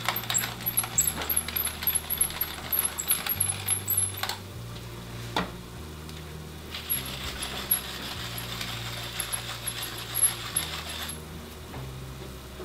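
Salt and pepper grinders twisted over a pan of mushrooms: a dense crackle of fine clicks for about four seconds, a single sharp click, then a second spell of grinding from about seven seconds in that stops a little after eleven seconds.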